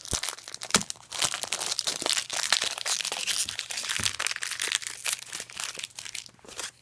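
Foil booster-pack wrapper crinkling with many quick crackles as it is handled and opened, stopping near the end.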